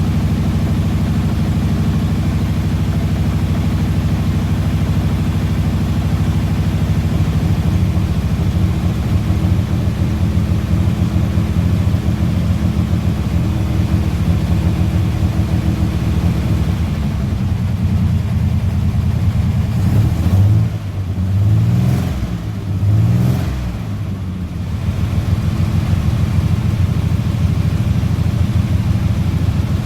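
Car engine idling steadily, then revved up and back down three times in quick succession past the middle before settling back to idle.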